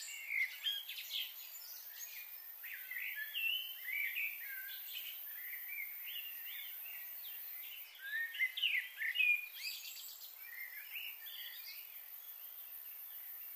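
Birds chirping and calling in quick, rising and falling phrases, busiest around the start and again about eight to ten seconds in, over a steady high hiss.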